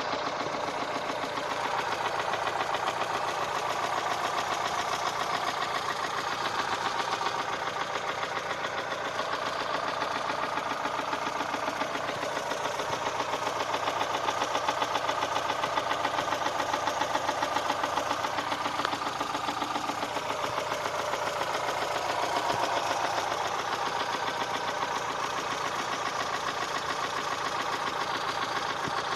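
ZAZ Sens 1.3-litre four-cylinder engine running with a steady, rapid, even knock. It is the engine knock the owner is showing.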